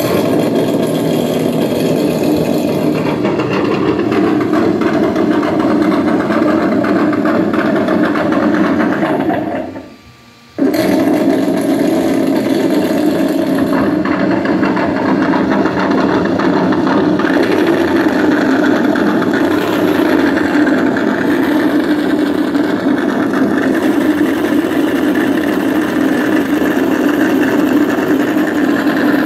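Simulated engine sound from the RC car's electronic sound module, played through its speaker and running steadily. It cuts out for about a second around ten seconds in, then starts straight back up.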